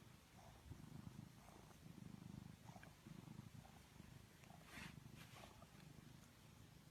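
A domestic cat purring softly close by, the low rumble swelling and fading in waves about once a second with its breathing.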